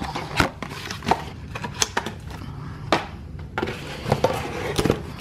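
Cardboard boxes and packaging being handled: irregular light knocks and taps about once a second, with paper rustling between them.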